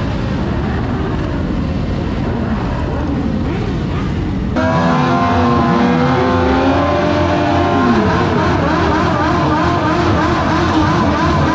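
Several motorcycle engines running as a group of bikes rides off. About four and a half seconds in the sound changes suddenly to motorcycles revving up and down in quick sweeps, amid clouds of tyre smoke.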